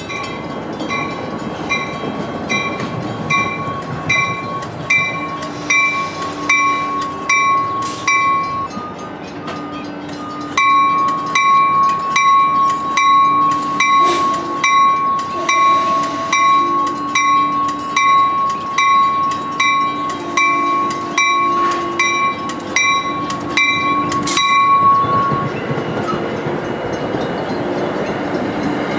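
NJ Transit cab car's bell ringing about twice a second as the commuter train rolls slowly into the station, with a short pause around nine seconds in and stopping near the end. Under it is the rumble of the cars passing.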